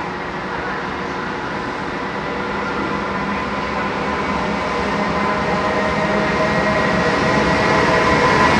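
JR Freight EH500 electric locomotive hauling a container freight train, approaching and passing at speed. Steady whining tones ride over the rumble of the wheels, growing steadily louder as the train nears.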